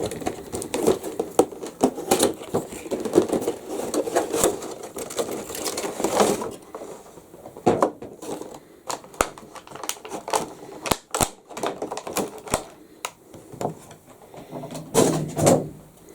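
Cardboard box and plastic packaging being handled and opened to take out a bobblehead figure: a dense run of crackling rustles and clicks for the first six or seven seconds, then scattered sharp clicks.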